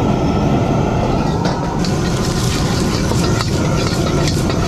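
Gas wok burner running with a steady low rumble. From about two seconds in, egg and rice sizzle in the hot wok while a metal ladle scrapes and clanks against it.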